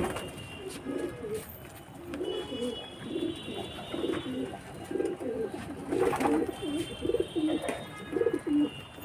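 A flock of domestic pigeons cooing, many overlapping low, warbling calls going on without a break.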